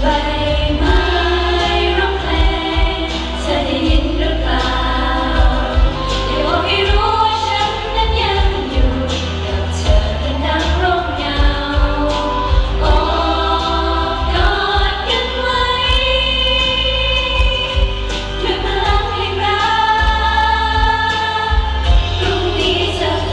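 Two women singing a Thai idol-pop ballad live into handheld microphones over a backing track with a steady bass and beat, amplified through a stage sound system.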